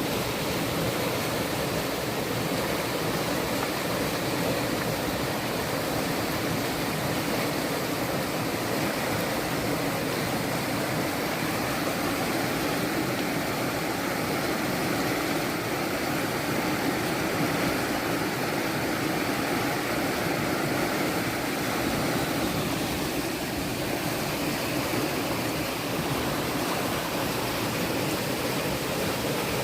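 Fast-flowing water rushing steadily in a stream, a constant even roar of churning water.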